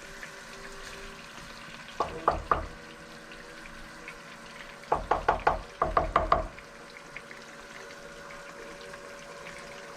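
Spatula strokes scraping and knocking against a frying pan while fried rice is stir-fried. There are two quick runs: about three strokes around two seconds in, and a longer run of about nine between five and six and a half seconds.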